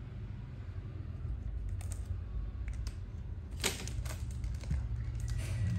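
Scattered light clicks and taps, with one sharper click about two-thirds of the way in and a quick cluster near the end, over a steady low hum.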